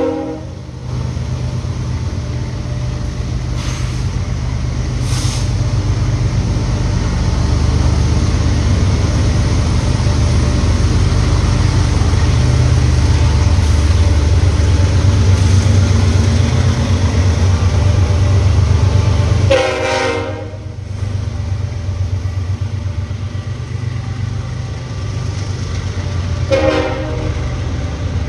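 BNSF diesel freight locomotives passing with a steady, deep engine rumble, joined by a short train horn blast about twenty seconds in and a briefer one near the end.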